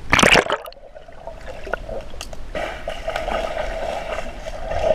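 Pool water splashing as the camera goes under, then steady muffled underwater sloshing and bubbling.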